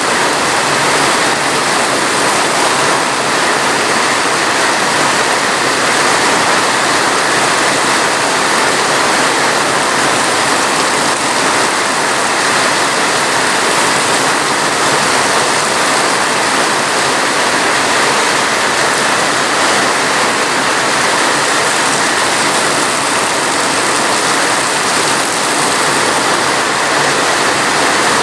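Steady heavy rain, an even unbroken hiss with no drops or changes standing out.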